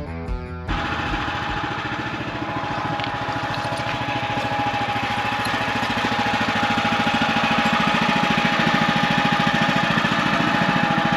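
Guitar music cuts off less than a second in, giving way to the small gasoline engine of a Woodland Mills HM130 Max portable bandsaw mill running steadily, growing slightly louder toward the end.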